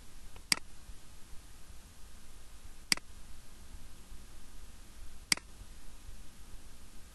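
Three single computer mouse-button clicks, about two and a half seconds apart, over a faint steady hiss.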